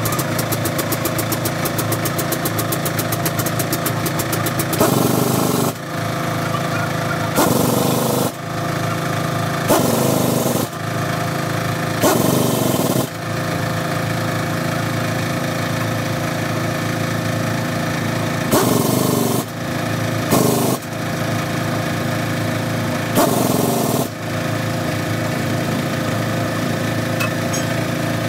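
An engine running steadily in the background, broken about seven times by louder noisy stretches of up to a second each.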